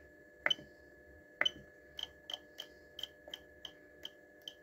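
Rotary knob of a TECH ST-480 boiler controller being turned and pressed through its menus, each step giving a short sharp click. Two stronger clicks come near the start, then a run of lighter clicks at about three a second, over a faint steady hum with a thin high whine.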